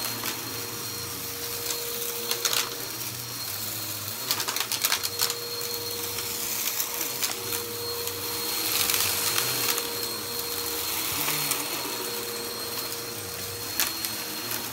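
Bissell PowerForce bagless upright vacuum running over carpet with its brushroll on: a steady motor rush with a constant whine. It is broken by sharp crackles of debris being sucked up, once about two and a half seconds in and in a cluster around four to five seconds.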